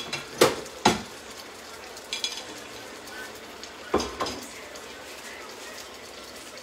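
Sharp metal knocks as a mesh strainer is tapped against the rim of a stainless stock pot, twice in the first second, and two more knocks about four seconds in. Under them a frying pan of fish in tomato sauce sizzles steadily on high heat.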